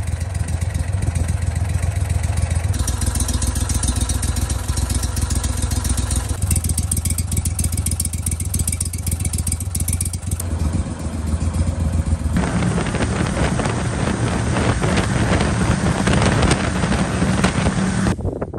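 Gator Tail GTR XD surface-drive mud motor running, its engine note steady but shifting in pitch and character several times. From about twelve seconds in it runs louder and rougher, with a rushing noise, as the boat moves across the water, then it cuts off just before the end.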